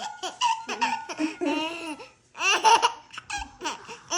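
A young child laughing in several separate bursts with a short pause about two seconds in.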